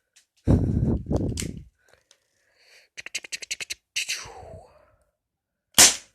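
A CO2-powered BB gun fires once with a sharp crack near the end. Before it comes a rapid run of about ten clicks and a short hiss, and about half a second in there is a loud second-long vocal or mouth noise.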